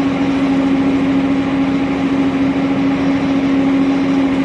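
A ship's engine running with a steady drone and a constant hum, heard on board the vessel.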